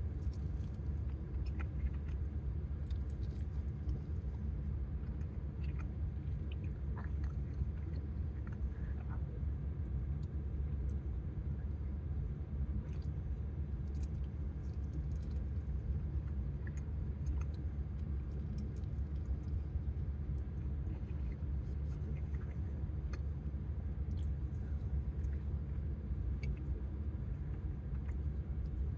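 A person chewing and biting food, with small irregular clicks and smacks, over a steady low rumble.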